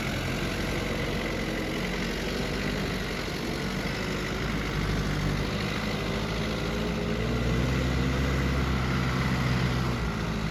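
Daihatsu Taft F50 four-wheel-drive engine running at low speed, growing somewhat louder and deeper from about seven seconds in.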